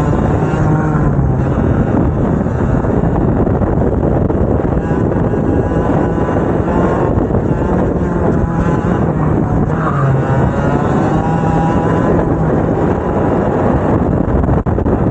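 Two-stroke racing kart engines running at high revs, their pitch rising and falling repeatedly as they accelerate and lift off.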